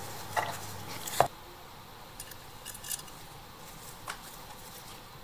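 Small hard clicks and taps of toy parts being handled: a clear plastic window insert fitted into a Matchbox toy truck's cab, with one sharp click about a second in and a few fainter ticks after.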